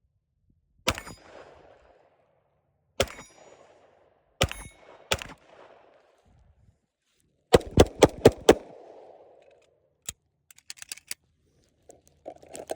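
Pistol shots: four single shots a second or two apart, then a fast string of about six shots, each with a short ringing tail. Lighter clicks and knocks follow near the end.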